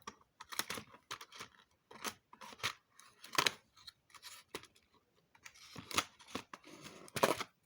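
A numbered cardboard door of an advent calendar being worked open: a series of short, irregular scraping and tearing sounds as the cardboard resists.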